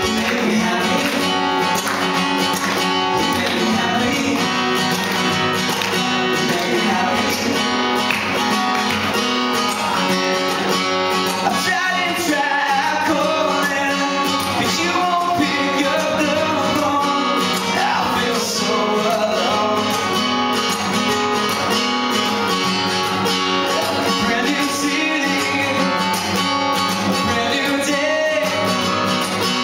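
Live acoustic guitar strummed steadily, with a male voice singing over it into a microphone.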